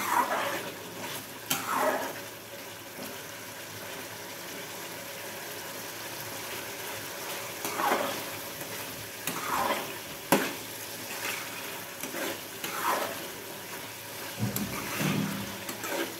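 Thick chicken curry sizzling in a kadhai while a metal spatula stirs and scrapes the pan, with a sharp clink of spatula on pan about ten seconds in. The gravy is being cooked down to thicken it.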